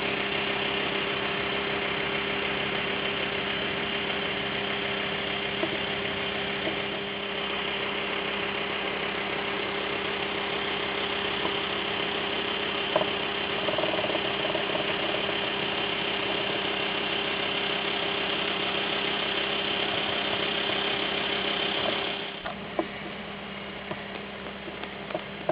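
An engine idling steadily at a constant pitch, dropping away about 22 seconds in, with a few faint clicks.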